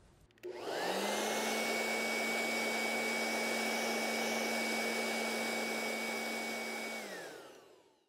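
Electric box fan switched on about half a second in, spinning up with a quickly rising whine to a steady rush of air. It runs for about six seconds, then is switched off and winds down with a falling tone.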